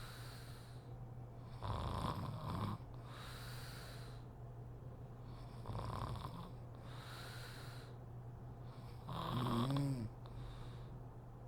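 A sleeping woman snoring: three snores about four seconds apart, each followed by a softer breathy exhale, the last snore the loudest and most strongly pitched.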